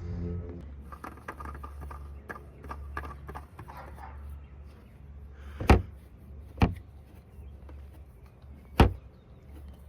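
Light clicks and handling noises over a steady low hum, with three sharp knocks, two close together about halfway through and one louder near the end.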